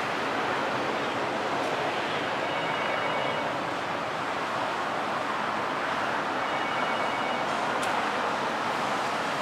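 Helicopter hovering at a distance: a steady rushing noise of rotor and turbine, with a faint high whine that comes in twice.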